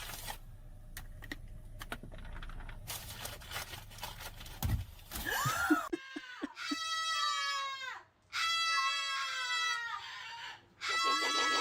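Animal calls from a video clip: after a noisy opening, three long, high cries start about six seconds in, each falling in pitch at its end.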